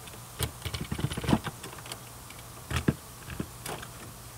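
Utility knife cutting through a plastic polymesh screen: short scratchy crunches in clusters, one group starting about half a second in and another near three seconds.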